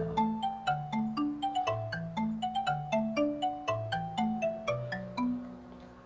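Background music: a light tune of short, quickly fading notes over a stepping bass line.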